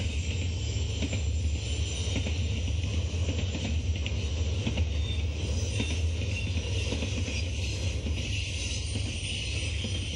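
Double-stack intermodal freight train's container well cars rolling steadily past: a continuous low rumble of wheels on rail with a hiss and scattered clicks.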